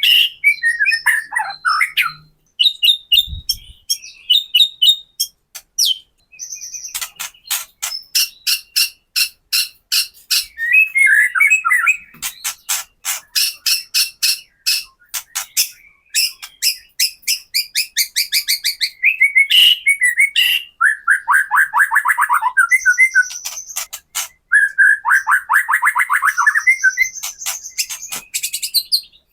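White-rumped shama (murai batu) giving its harsh rattling 'kretekan' call, long runs of rapid ticking notes broken by short warbled and squeaky phrases. It is the aggressive, excited call used to provoke other shamas into singing.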